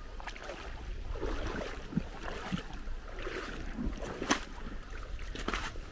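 Wind rumbling on the microphone, with irregular steps crunching on wet gravel and a few sharp clicks, the loudest about four seconds in.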